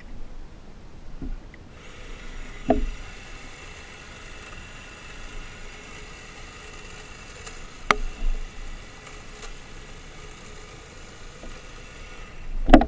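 Three sharp knocks and clicks from handling the plastic body of a Makita DUN461WZ cordless long-reach hedge trimmer, the last one the loudest, over a faint steady high hum.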